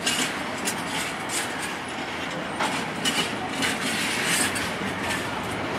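Freight train of bogie hopper wagons rolling past at steady speed. The wheels clatter over rail joints in a continuous run of knocks, with a few brief high wheel squeals.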